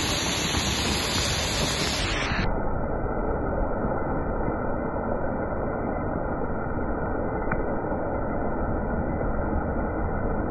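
Steady rushing noise of riding a Vespa scooter on a wet road in heavy rain: wind and spray on the microphone with the scooter running under it. The sound turns duller about two seconds in.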